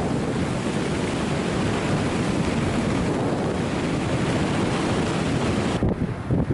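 Wind buffeting the microphone of a camera carried by a skier running downhill at about 50 km/h, a steady rushing noise. Near the end it changes abruptly to a choppier, duller rush.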